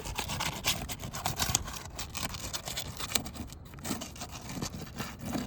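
Metal snake tool scraping and crackling as it is worked under brittle roof shingles to lift them and reach the nails, a dense run of irregular clicks and scrapes.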